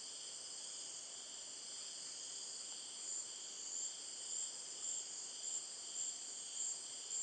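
Rainforest insect chorus: a steady, high shrill from several insects. From about three seconds in, a very high pulsing call repeats nearly twice a second.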